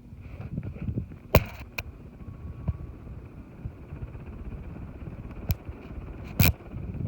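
Six-blade ceiling fan running, its airflow buffeting the microphone as a low rumble that grows louder just after the start, with a few sharp clicks, the loudest near the end.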